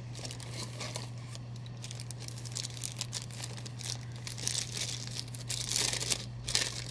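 Clear plastic bags crinkling as plastic-wrapped statue parts are handled and lifted out of a styrofoam tray, getting busier and louder near the end. A steady low hum runs underneath.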